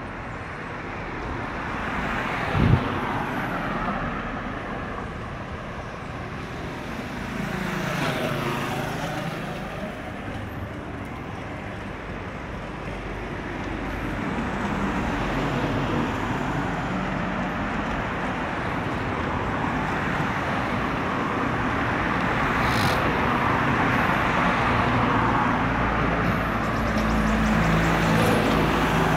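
Road traffic: cars driving past one after another, each swelling and fading, with a sharp knock about three seconds in. The noise builds towards the end as a line of cars approaches.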